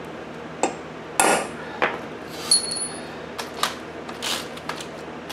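Hammer striking the steel strut mount: four sharp metallic taps about two-thirds of a second apart, the last one ringing briefly. Then come a few lighter clicks and knocks as the tools are handled.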